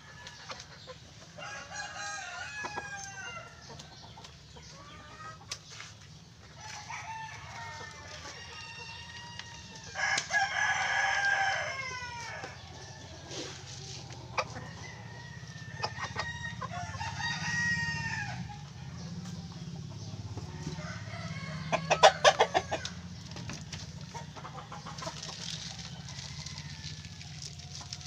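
A flock of chickens clucking and calling while they feed, with a rooster crowing once for about two seconds around a third of the way in. About three-quarters of the way through, a rapid run of sharp knocks is the loudest sound.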